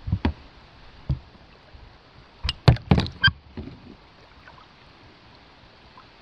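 Kayak paddling: the paddle knocks and splashes against the hull a few times, most loudly in a cluster about two and a half to three and a half seconds in, with quiet water hush between strokes.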